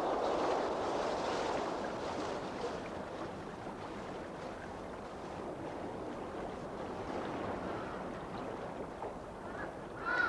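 Wind and choppy waves on a lagoon: a steady rushing noise, loudest at the start and easing slightly. A bird's call comes in right at the end.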